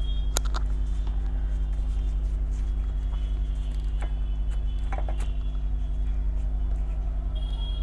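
A steady low mechanical hum runs throughout. Over it come scattered small clicks and rustles of someone eating: tearing bread and handling food with the fingers.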